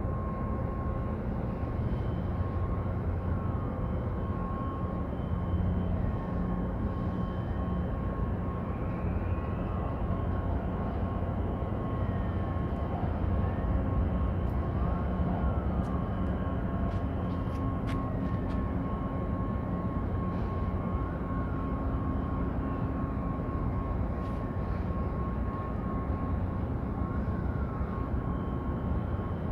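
A steady low mechanical drone with a thin, steady high whine over it and faint chirps recurring every few seconds.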